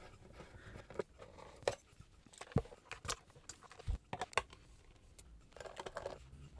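Small screws being turned out of the Korg SQ-1 sequencer's steel case with a screwdriver, and the case being handled: a dozen or so sharp metallic clicks and taps at irregular intervals.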